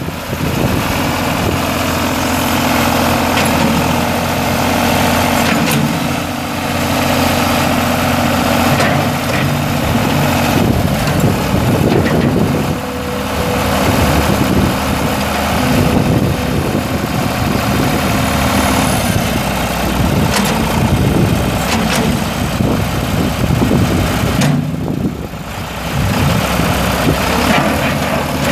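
The Ford 545A tractor's 3.3 L three-cylinder diesel engine running steadily, its note shifting about twelve seconds in.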